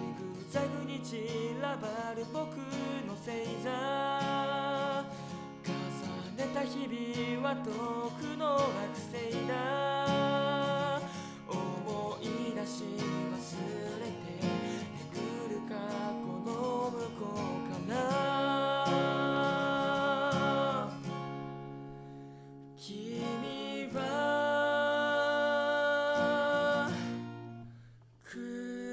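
Steel-string acoustic guitar strummed with a capo through chords such as Fmaj7, G, E7 and Am7, accompanying a man singing in Japanese. The music drops briefly near the end before a key change.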